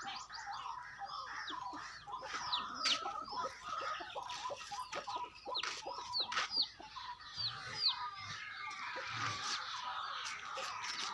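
Chickens clucking, with many short, high chirps that fall in pitch.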